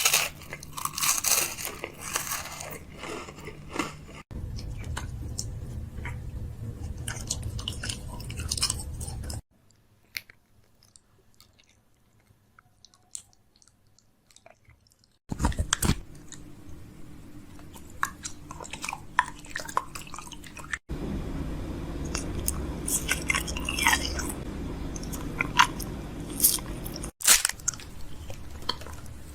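Crunchy chewing and biting, in several short segments that change abruptly, with a near-silent stretch in the middle holding only faint clicks.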